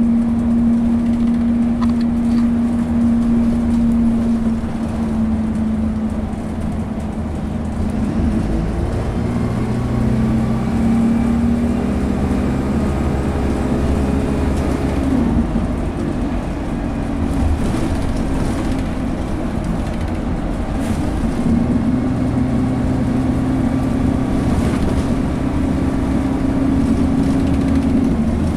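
Dennis Dart bus's diesel engine and Allison automatic gearbox heard from inside the saloon, working hard with a steady high drone. The drone eases a little about a quarter of the way in, builds again, and its pitch dips and settles about halfway through.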